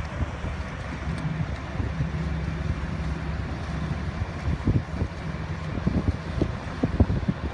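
Wind rumbling on the microphone, in sharper gusts during the second half, over the low, steady drone of passing motor yachts' engines.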